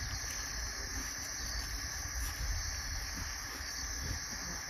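Steady, high-pitched chorus of forest insects shrilling without a break.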